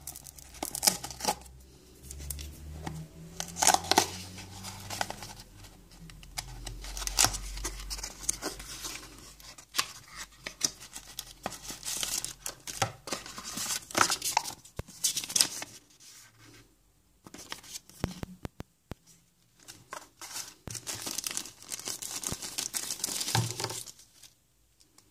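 Hands unpacking small earphone packaging: a cardboard box being handled and opened, then a paper and thin plastic wrapper being torn and crinkled, in irregular bursts of rustling, scraping and clicks.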